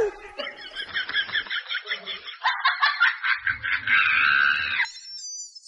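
Comedy sound effect of rapid, high chicken-like clucking calls, about seven a second, then a denser squawk. Near the end it gives way to a steady high cricket-like chirping.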